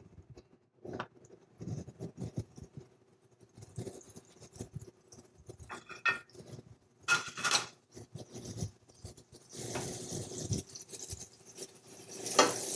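Scattered light clicks and rustles of floured beef cubes being handled, then, from about ten seconds in, a steady sizzle as the beef goes into hot canola oil in a cast iron skillet, louder near the end.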